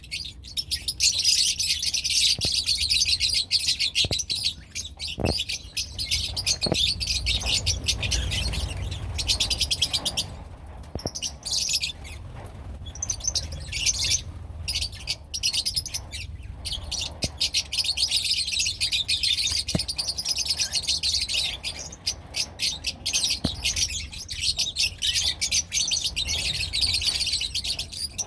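Lovebirds chattering in a constant stream of rapid, high-pitched chirps, with a few brief lulls midway, over a faint low hum.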